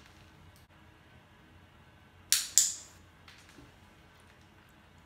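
A pet-training clicker pressed and released, two sharp clicks about a quarter second apart a little over two seconds in, marking the cat touching the target stick.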